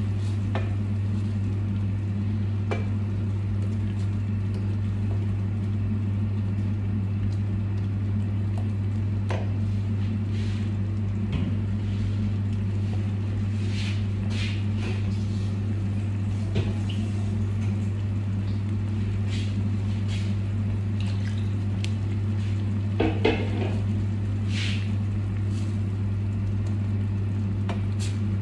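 Tomato sauce sizzling in a stainless steel frying pan on a gas burner, with scattered crackles and a wooden spoon now and then scraping and knocking against the pan, over a steady low hum.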